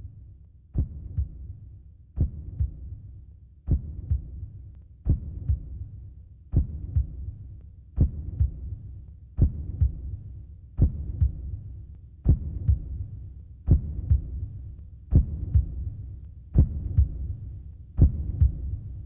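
Slow, steady deep thumps, one about every second and a half, each starting with a sharp click and followed closely by a softer second beat, like a heartbeat.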